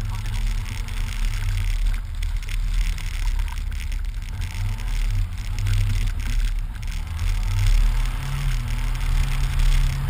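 Jeep Wrangler's engine running as it drives through snow, its pitch rising and falling with the revs, under a heavy low rumble of wind on the outside-mounted camera's microphone.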